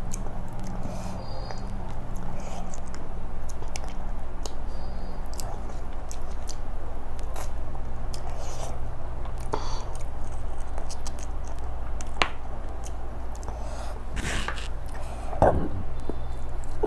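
Close-up chewing and wet mouth clicks of someone eating chicken biryani by hand, over a steady low hum, with a louder burst near the end.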